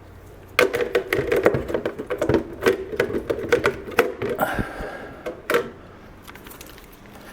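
Ear pad being pried and pulled off a Beyerdynamic DT 990 Pro headphone's ear cup: a rapid run of plastic clicks and rubbing that starts about half a second in and stops near six seconds.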